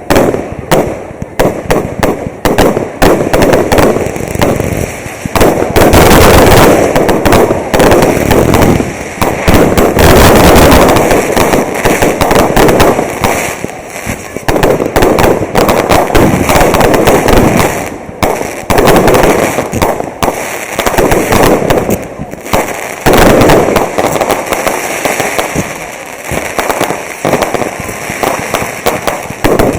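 Fireworks display: a dense, continuous barrage of firework bangs and crackling, loudest and most packed a few seconds in and again around the middle.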